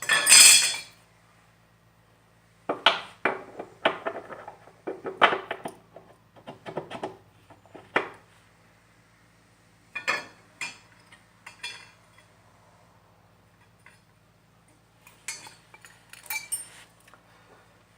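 Metal parts and hand tools clinking and tapping against each other while a bolt is tried in a lawnmower engine mount. The clinks come in irregular clusters with quiet gaps, over a faint steady low hum.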